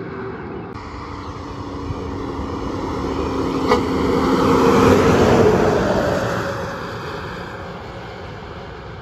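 Tractor-trailer semi truck approaching and passing at road speed. Its diesel engine and tyre noise build to a peak about five seconds in, then fade as it drives away. There is a single sharp click just before it passes.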